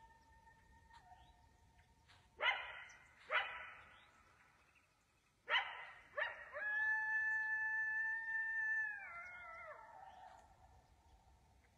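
A coyote giving a bark-howl: three sharp barks a second or two apart, then one long, steady howl held for about two and a half seconds that wavers and trails off near the end.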